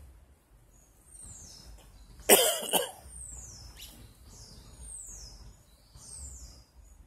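A person coughs once, loudly, about two seconds in. Behind it a bird repeats a short high whistle that slides down in pitch, about once a second.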